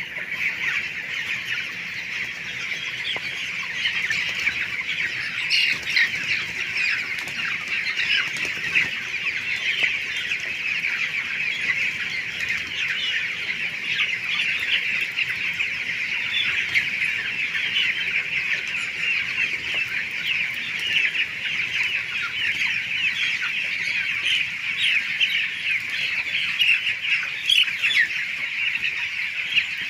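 A large flock of farm chickens calling all at once: a continuous, dense chorus of many short overlapping clucks and peeps.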